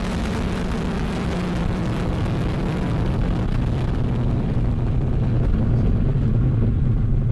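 Vega rocket's P80 solid-fuel first-stage motor at liftoff: a loud, deep, steady rumble. Its higher part fades over the last few seconds as the rocket climbs away.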